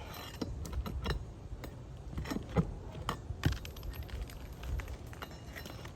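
Irregular metallic clicks and knocks of a hand tool working roofing nails loose from a shingle.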